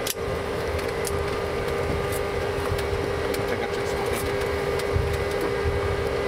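Steady flight-deck noise of a Boeing 707 taxiing on its Pratt & Whitney JT3D turbofans: a constant hum with one steady tone over a low rumble, heard inside the cockpit. A sharp tick right at the start and a few faint ticks later.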